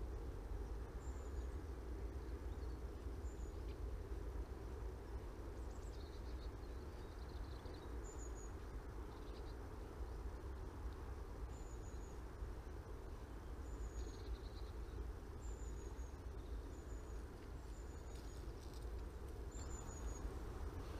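Steady rushing of flowing river water, with a small bird repeating short, high, falling chirps every second or two.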